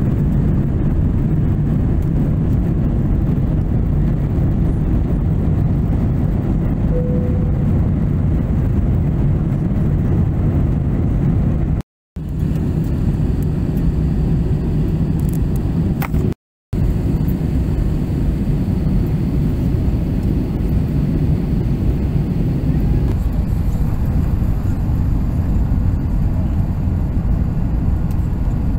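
Jet airliner cabin noise from a window seat: a steady low rumble of engines and rushing air. It cuts out twice for a moment a little under halfway through.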